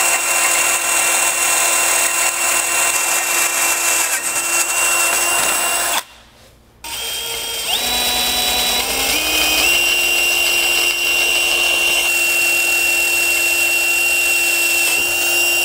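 DeWalt XR cordless drill running at full speed, boring through a steel grill guard with a larger twist bit to open up a pilot hole. It runs in two long stretches with a brief stop about six seconds in. In the second stretch the motor pitch shifts a few times before settling into a steady whine.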